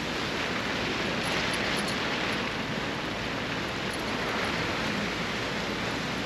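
Strong storm wind with rain: a steady rushing noise with no distinct gusts or impacts.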